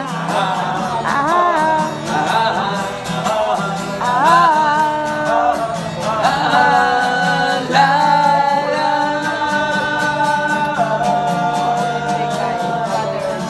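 A man singing a slow Tagalog ballad live to his own acoustic guitar strumming. He holds long notes through the second half.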